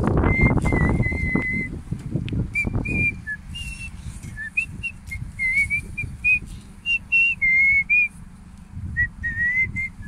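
A person whistling a tune: a string of short and held notes, several sliding upward, with a low rumbling noise underneath for the first three seconds.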